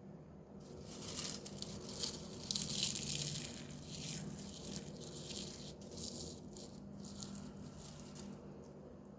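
Food sizzling and crackling in a hot pan: it starts suddenly about half a second in, is loudest for the next few seconds, then slowly dies down. A steady low hum runs underneath.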